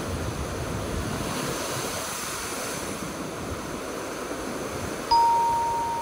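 Ocean surf surging and churning over a rocky shore, a steady rush of water. About five seconds in, a single clear bell-like chime rings out and slowly fades.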